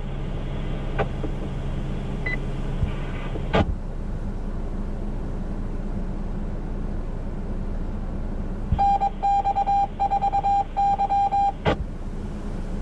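Radio scanner hiss with a couple of squelch clicks, then a rapid series of high beeps sent over the radio for about three seconds, cut off by a click.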